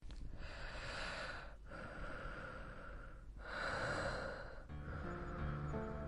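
A person breathing in long, slow breaths, about four in a row. Music with low held notes comes in near the end.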